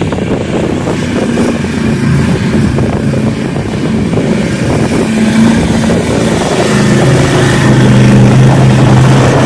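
Lifted off-road trucks' engines running hard and revving as they drive circles through deep mud, getting louder toward the end as the pickup comes close.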